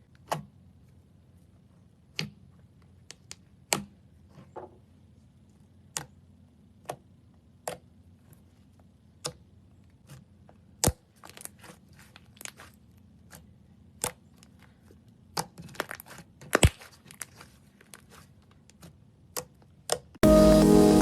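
Slime being handled, making sharp, irregular pops and crackles about once a second that come thicker near the end. Background music comes in just before the end.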